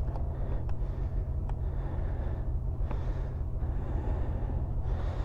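Close breathing, heard as soft hissing breaths about three seconds in and near the end, over a steady low rumble, with a few faint clicks.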